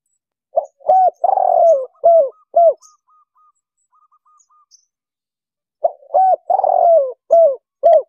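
Spotted dove cooing: two phrases of about five low, hooted notes each, the third note drawn out longest, the second phrase starting about five seconds after the first.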